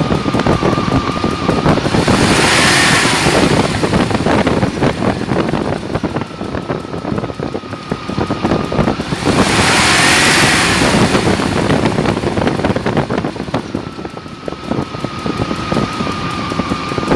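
1998 Range Rover P38's V8 engine running with a fast tick in time with the valves, which the owner takes for a valve noise, under the whirr of the cooling fan. The noise swells loudly twice, about two seconds in and again about nine seconds in.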